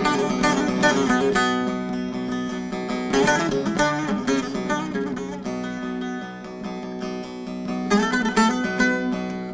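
Bağlama (saz) playing the free-rhythm instrumental opening of an uzun hava: bursts of quick plucked runs over a steady ringing drone string, thinning out about midway and picking up again near the end.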